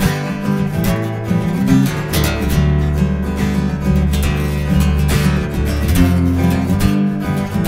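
Steel-string acoustic guitar strummed in an instrumental passage of a song, chords ringing on with no singing.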